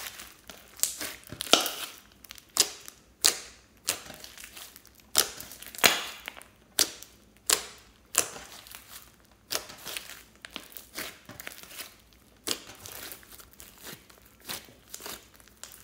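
Hands kneading and pressing sticky fluffy slime mixed with foam beads. Irregular sharp pops and crackles come about once or twice a second, with a faint crinkling between them.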